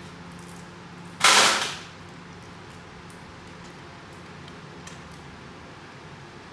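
Light metallic clicks from bolts being taken out of an automatic transmission valve body, with one sudden loud burst of noise about a second in that fades within about half a second.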